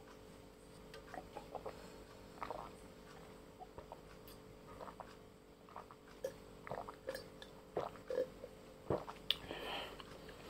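Close-up swallowing and wet mouth sounds of someone drinking water from a glass, in scattered short bursts that come thicker and louder in the second half, with a few sharper clicks near the end.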